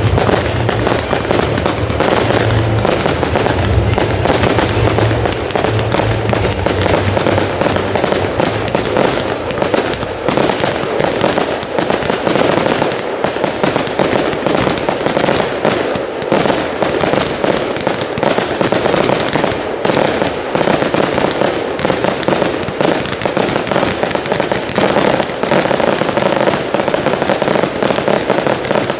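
Fireworks display going off in a dense, rapid barrage of sharp reports and crackling, with music playing underneath.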